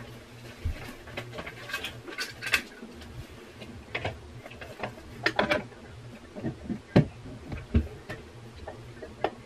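Irregular light clicks and taps of a flat iron and hair clips being handled, over a faint low hum.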